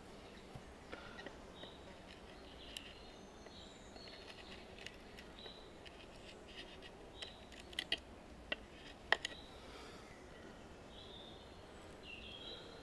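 Faint woodland ambience: small birds chirping now and then, with scattered sharp clicks and taps, a cluster near the middle and the loudest about nine seconds in.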